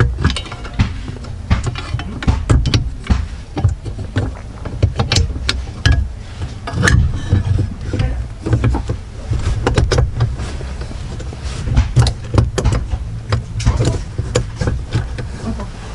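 Irregular clicks, knocks and rattles of an aluminium aftermarket short-shifter assembly and its shift cables being handled and slid into place in a car's floor tunnel, over a low rumble.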